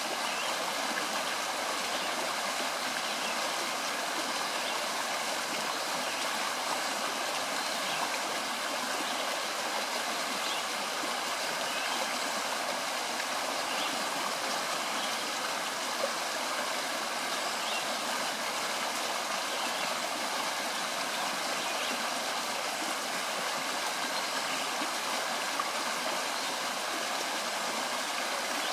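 Shallow stream running over a stony bed: a steady, even rush of flowing water.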